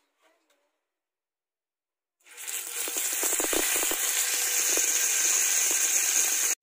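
Raw tuna slice laid into hot oil in a nonstick frying pan, setting off a loud sizzle about two seconds in that carries on steadily, with a few soft knocks as the fish is set down. The oil spatters, which the cook puts down to the tuna being fatty.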